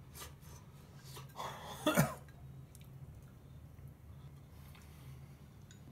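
A man eating from a bowl with chopsticks makes a short breathy sound and then a brief throaty vocal sound that falls in pitch, about two seconds in. A low steady hum runs underneath.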